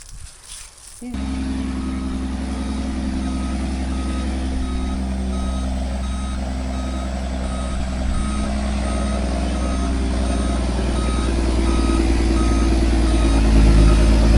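Dump truck's diesel engine running as it backs up, its reversing alarm giving evenly spaced beeps. The engine cuts in suddenly about a second in and grows louder near the end.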